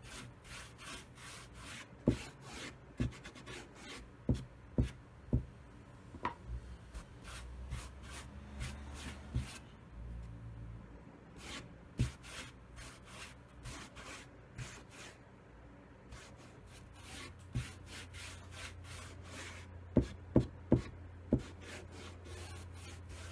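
A rag rubbed in quick repeated strokes over rough pallet boards, wiping white paint on for a weathered-gray finish. Sharp knocks break in a few times, with a quick run of four near the end.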